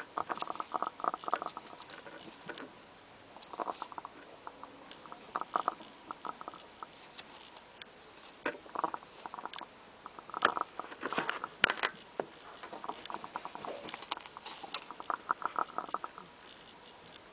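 A hen snoring: short runs of rapid rattling clicks, repeated every couple of seconds, with a few sharper single clicks between them.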